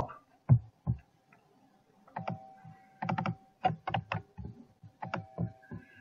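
Computer keyboard typing: two key clicks near the start, then a quick, uneven run of key clicks from about two seconds in, over a faint steady tone.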